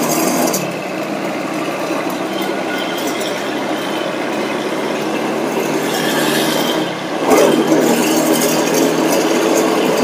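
A vehicle engine running steadily amid busy city road traffic noise.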